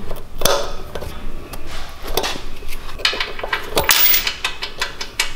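Irregular metallic clicks, knocks and clatter of hand tools and bike parts being handled, with side cutters snipping at the frame's wiring.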